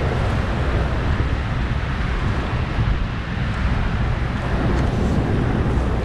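Steady low rumble of wind buffeting the microphone over rushing, churning river water, heard from a boat on the water.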